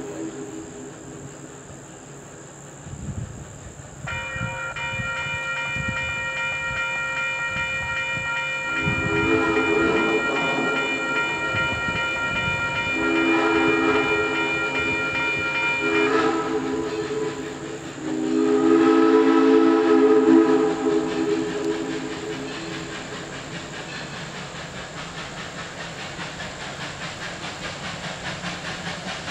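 Steam locomotive #1702 blowing its whistle in the grade-crossing signal: two long blasts, a short one and a final long one, the last the loudest. Under it the engine's exhaust beats as it works up a grade, out of sight.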